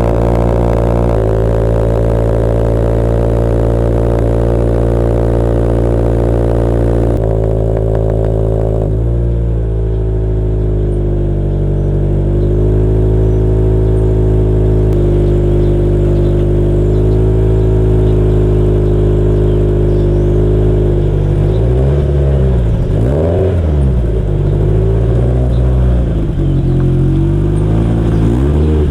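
Turbocharged Subaru BRZ's flat-four engine on its cold start, idling high and settling down in steps over the first several seconds, then revved briefly a few times near the end. It is heard through the current exhaust: the stock mid pipe and a Nameless axle-back with 5-inch mufflers.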